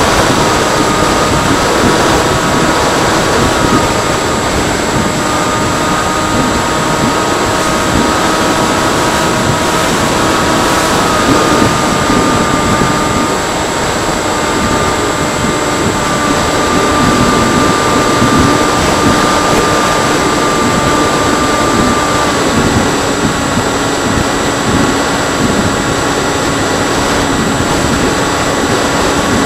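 Freewing Seagull RC plane in flight, its electric motor running with a steady whine over a heavy rush of air. The pitch of the whine shifts slightly a few times as the throttle changes.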